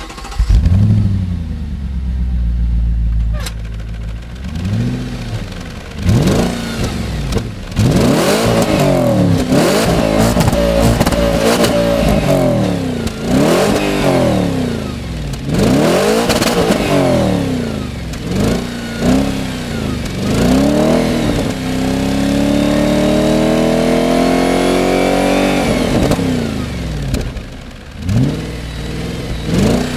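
Audi RS4's V8 engine firing up with a rev flare that settles to idle, then revved repeatedly with quick rises and falls. Later comes one slower, steady climb in revs lasting about four seconds before it drops back, followed by more quick revs.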